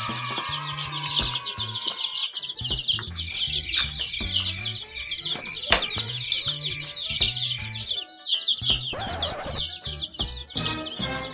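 A flock of young chicks peeping constantly, many high chirps overlapping, over background music with a low bass line.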